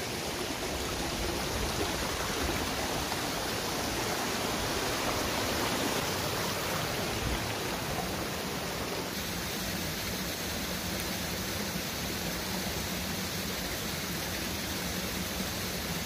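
Steady rushing of a small rocky gorge stream running over stones.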